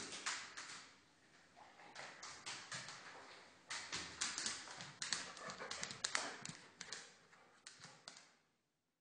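Quick, irregular tapping: the clicks of a dog's claws on a hard floor, with a short lull about a second in, dying away near the end.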